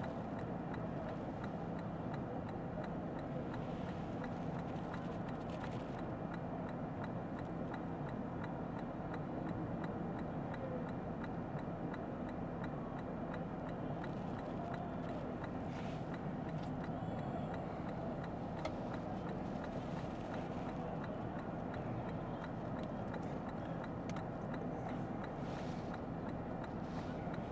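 Steady in-cabin road noise of a Lexus ES 350 F Sport sedan driving on wet roads: tyre and engine hum, with a faint ticking.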